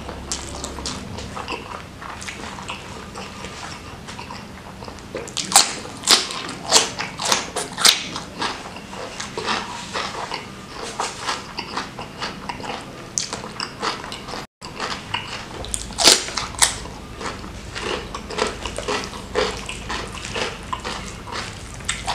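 Close-miked chewing and crunching of crispy fried omelette with rice and sambal, with clusters of sharp crunches about five to eight seconds in and again about sixteen seconds in.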